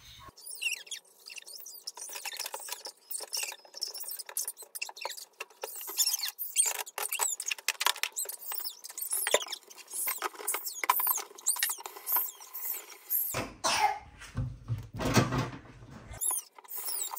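A sponge and a paper towel rubbing and scrubbing over a gas stovetop, making a quick run of short rubbing strokes and repeated small squeaks. About thirteen seconds in, a louder, fuller handling noise lasts about three seconds.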